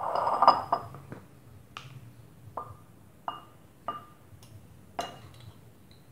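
Metal screw lid twisted off a small glass jar, a scraping rattle lasting about a second. Then a metal spoon clinks five times against the glass jar and ceramic bowl, each a short, ringing clink.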